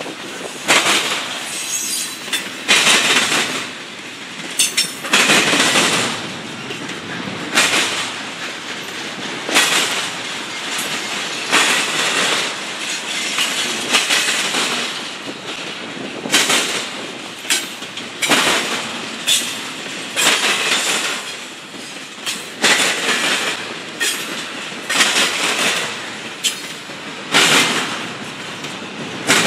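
Double-stack intermodal freight train rolling past, the wheels of its container well cars clacking in loud bursts every second or two over a steady rumble.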